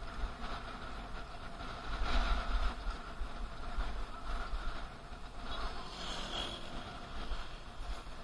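Wind buffeting the microphone of a camera on a moving bicycle, an uneven low rumble, over steady road and traffic noise.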